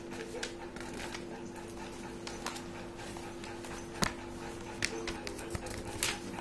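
Sheets of lined notebook paper being handled and flipped, giving a few short sharp snaps and rustles, the loudest about four seconds in and another just after six seconds, over a steady low hum.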